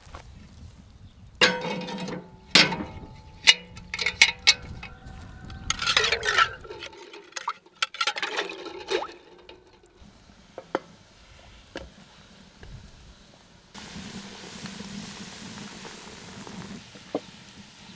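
Cast-iron stove ring and cauldron clanking with a ringing tone as they are set onto an iron outdoor stove, then water sloshing in the cauldron twice. Glass jars and a plate clink softly in the water, and a steady faint hiss starts a few seconds before the end.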